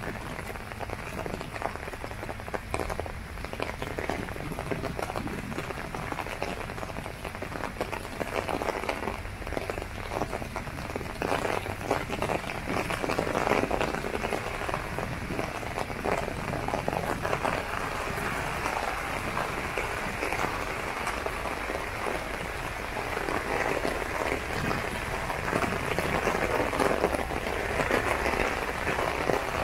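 Heavy rain pattering on an umbrella held overhead, a dense, even patter of drops that gets heavier about twelve seconds in.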